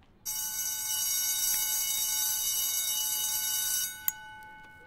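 Electric school bell ringing loudly for about three and a half seconds, then cutting off while its tone rings on and fades. A single sharp click comes just after it stops.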